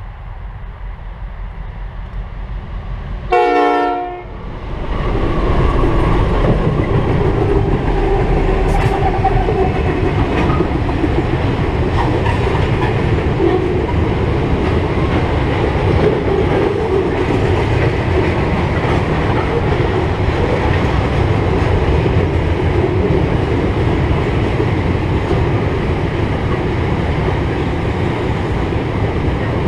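Pacific National SteelLink freight train passing over a bridge. Its diesel-electric locomotives give one short horn blast about three seconds in, then the train passes with a loud, steady rumble. Wagons loaded with steel coils keep up a clickety-clack of wheels over the rails.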